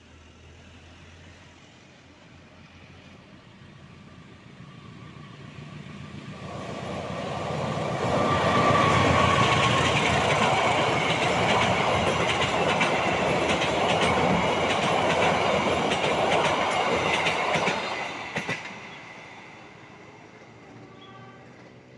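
Passenger train hauled by a CC203 diesel locomotive crossing a steel girder railway bridge: it builds up over several seconds, then the carriages rumble and clatter loudly over the rail joints for about ten seconds. The sound drops away suddenly as the last carriage clears the bridge, leaving a fading rumble.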